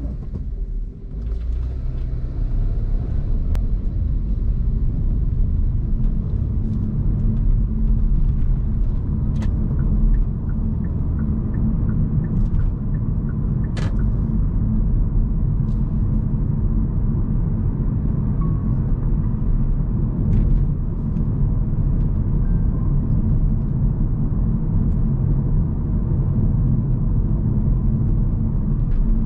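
Steady low road and tyre rumble of a Hyundai Kona Hybrid driving, heard from inside the car. It grows louder about a second in, and a few short clicks sound over it.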